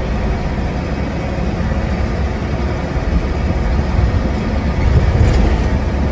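Inside the saloon of a preserved M-registered single-deck bus under way: a steady low engine drone with road and body noise.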